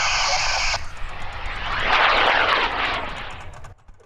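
High-power model rocket motor roaring as the rocket climbs. The noise swells to its loudest about two seconds in, with a falling sweep, and drops away sharply shortly before the end.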